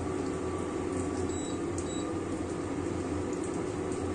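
Tabletop induction cooker running with a steady electrical hum and hiss while the oil in the wok heats up.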